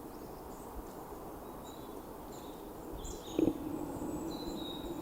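Quiet outdoor ambience: a steady low hum with faint, short, high bird chirps here and there, and one soft knock about three and a half seconds in.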